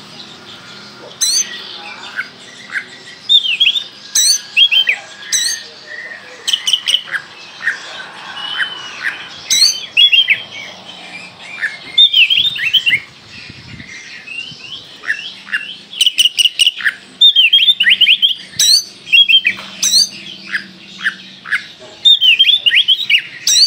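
Caged Oriental magpie-robin (Kalimantan kacer) singing steadily: a loud, varied run of clear whistles that sweep up and down, broken by very short, sharp, piercing notes, the 'shots' that keepers prize in a bird in full song.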